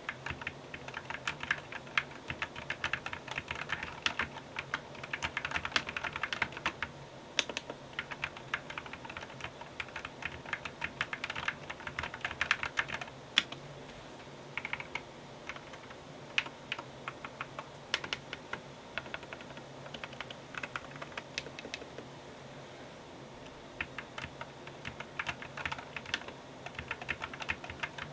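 Typing on a MonsGeek FUN60 Pro keyboard with magnetic Hall-effect switches: fast runs of keystroke clicks, with a few brief lulls where the keys go sparse.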